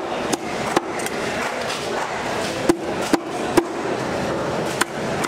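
Heavy curved knife chopping into a houndfish on a wooden cutting board: about six sharp knocks, the loudest three close together about halfway through, over steady background noise.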